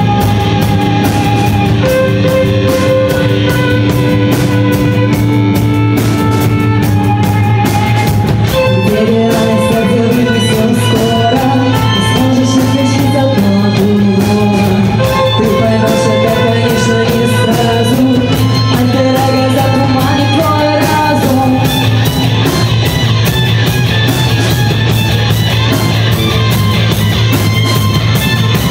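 A live rock band playing loud: electric guitars, bass guitar and drum kit with a violin. Held notes open the passage, then a woman sings a melody from about eight seconds in until about two-thirds of the way through.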